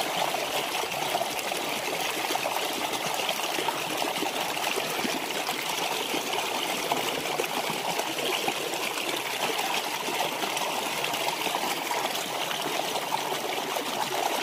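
Shallow rocky stream flowing over stones: a steady rush and trickle of running water.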